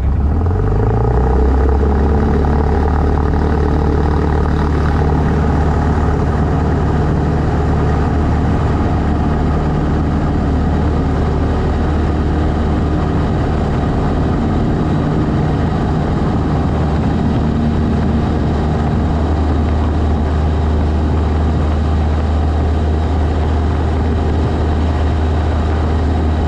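Cessna 152's four-cylinder Lycoming engine and propeller running with a steady drone, its pitch dropping slightly about a second in and then holding.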